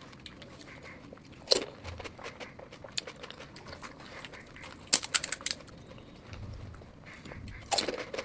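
Close-miked eating sounds: sharp, crisp bites of street food, one about a second and a half in, a quick run of crunches around the middle and more near the end.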